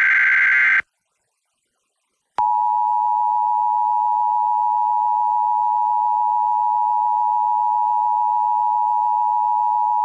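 The end of an EAS SAME header data burst, a harsh digital warble, then after about a second and a half of silence the Emergency Alert System attention signal: a steady two-tone sound of 853 and 960 Hz held unchanged for about eight seconds, announcing the test message that follows.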